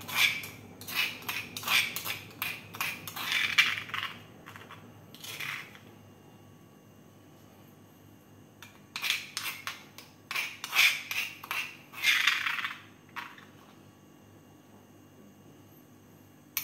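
A metal spoon clinks and scrapes against a stainless steel bowl as spice paste is spread over a fish. The sound comes in two spells of quick clinks with a quiet pause between them.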